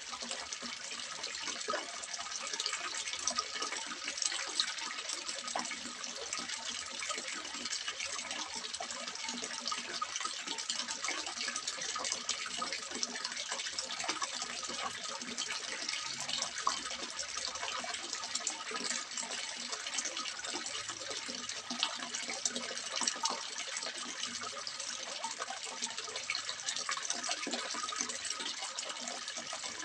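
Water splashing steadily into a small fish pond, a continuous bubbling splash.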